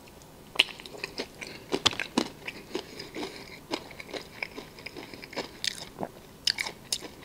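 Close-miked chewing of food: irregular wet mouth clicks and smacks, with some crunch.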